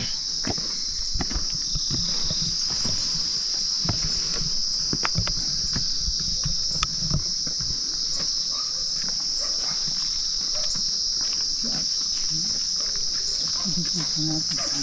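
A steady, high-pitched chorus of insects, with the irregular scuffs of footsteps on a paved path and steps.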